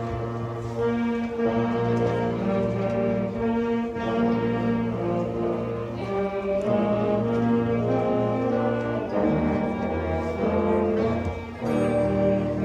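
Band music led by brass instruments, playing slow held chords that change every second or two.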